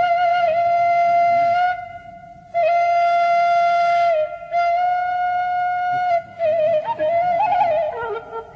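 Background music: a solo flute-like melody of long held notes with small trills, moving to a lower note near the end.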